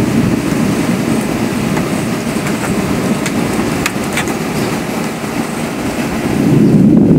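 Gusty wind blowing through the trees and buffeting the microphone ahead of a thunderstorm, a steady low rumble that eases slightly and then picks up again near the end. A few faint clicks come through about halfway.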